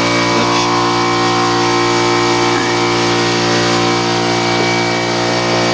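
A steady mechanical hum at several fixed pitches, with a low even pulsing underneath, running unchanged throughout.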